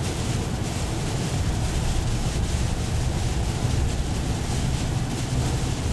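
Steady rumble of road and wind noise inside a moving vehicle's cabin.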